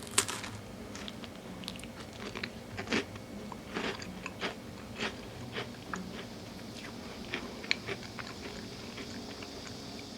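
Close-miked eating of honeycomb: a sharp bite at the very start, then chewing with irregular short, sharp clicks and crunches, about one or two a second, with a loud one near the end.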